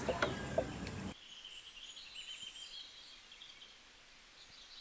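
A second of sharp knocks from a long-handled net being emptied into a plastic crate, then a faint, quiet outdoor background with small birds chirping.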